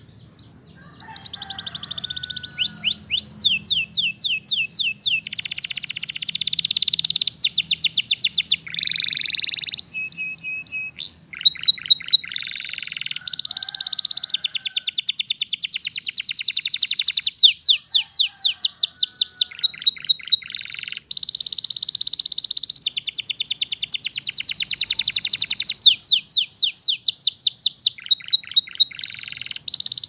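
Domestic canary singing a long, high song of fast trills, each phrase a rapid run of repeated notes, starting about a second in and broken only by brief pauses between phrases.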